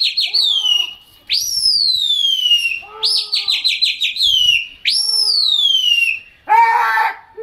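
Loud, high whistling calls to a flock of flying pigeons, repeated several times, each a quick warbling trill followed by a long falling swoop. A short shout comes near the end.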